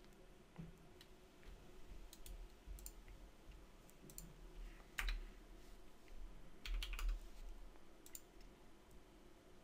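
Faint, scattered clicks of a computer mouse and keyboard, single clicks and short runs of keystrokes a second or so apart.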